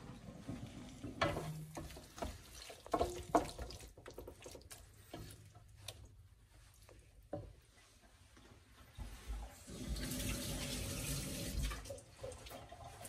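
Wooden spoon knocking and scraping against the metal pressure cooker as chicken is stirred. About ten seconds in, running water hisses for a couple of seconds.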